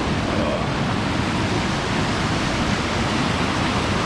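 Steady rush of a waterfall, an even, unbroken noise of falling water close by.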